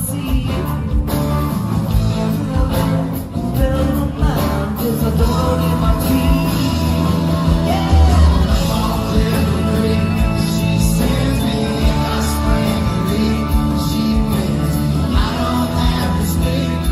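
Rock song with singing over a steady beat.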